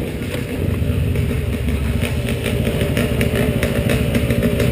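ATV engine running steadily at low revs as the quad rolls slowly, with a slight rise in level about half a second in.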